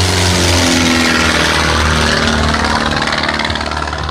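Helicopter passing low overhead, its rotor and engine noise loud and its pitch dropping slightly as it goes by.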